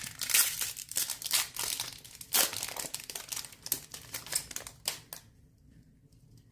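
Crinkling and crackling of a trading-card pack's wrapper being handled, stopping about five seconds in.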